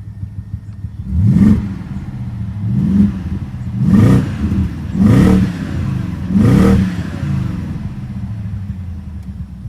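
2005 BMW 650i's 4.8-litre V8 idling and blipped five times in quick succession, each rev rising and dropping back to idle. The owner reports a misfire on cylinder 5 that shows most at idle.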